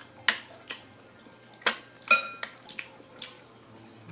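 Metal spoon clinking and scraping against ceramic plates and bowls: about eight sharp clinks, one a little past two seconds in ringing briefly.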